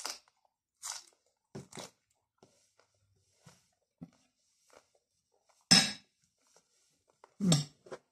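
Close-up crunching and chewing of raw leafy greens: a few crisp bites early on, then quieter chewing, with two louder sudden sounds in the second half.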